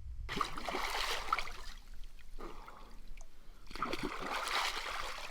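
Water splashing in a rock pool as a swimmer gets in and moves through it. The splashing starts suddenly just after the start and comes in three stretches with short lulls between them.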